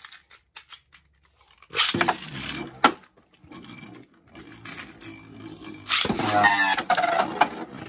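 Beyblade Burst tops, Storm Spriggan Knuckle Unite and Lost Longinus Nine Spiral, launched one after the other into a plastic stadium. A launcher ripping about two seconds in, with a sharp click as the top hits the plastic and then spins and scrapes. A second launch near six seconds with a gliding whir.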